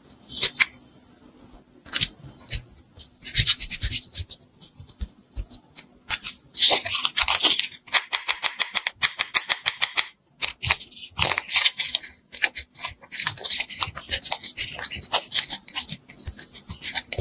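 Hands working modelling dough and a plastic mould up close: bursts of crackly rubbing and squishing, with runs of rapid clicks, as the dough is pulled apart and pressed into the mould.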